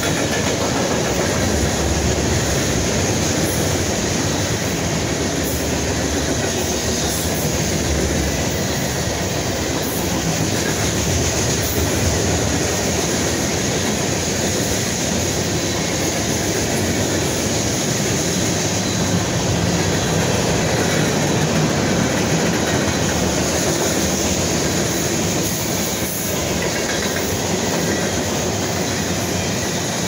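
Norfolk Southern manifest freight train's hopper and tank cars rolling past: a steady rumble of steel wheels on the rails, with occasional faint clicks.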